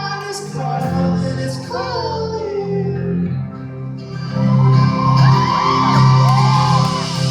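Live band playing a song, with voices singing and whooping over the music.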